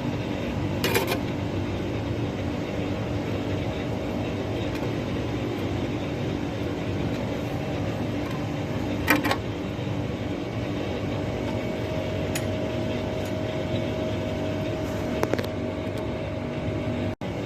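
Carrier 60,000 BTU air conditioner running steadily on a newly fitted Fasco condenser fan motor, a constant mechanical hum. A few light metallic clinks sound over it.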